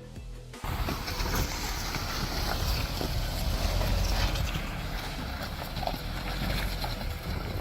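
Wind buffeting the microphone over a vehicle running outdoors, a dense low rumble with hiss that sets in abruptly just under a second in.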